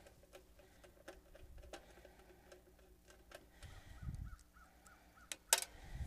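Light clicks and taps of a replacement AC contactor, its screws and a screwdriver being handled inside a condenser unit's sheet-metal control box, with a dull thump about four seconds in and a sharper clack near the end.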